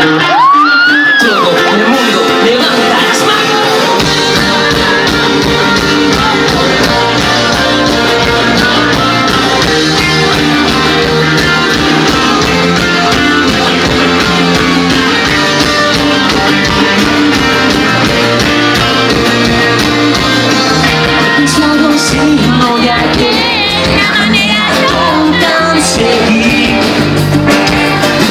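Live rock band playing with a singer. The drums come in about four seconds in.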